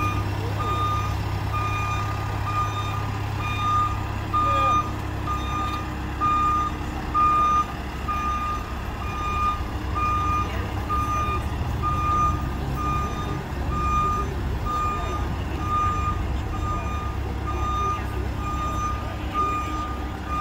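Telehandler's backup alarm beeping in a steady, evenly spaced series, with the machine's engine running low underneath as it moves.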